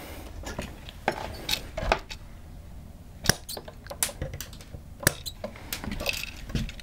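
Wire cutters snipping a short piece of copper wire, with irregular light metallic clicks and clinks, about eight in all, as the wires are handled at a steel switch box.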